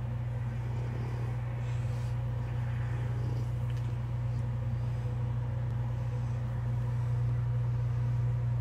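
A steady low hum from a running motor or appliance, unchanging throughout and growing slightly louder near the end.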